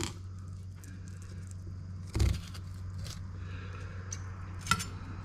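Knife cutting along a sea mullet on a plastic cutting board, with a low thump about two seconds in and a couple of sharp clicks later, over a steady low hum.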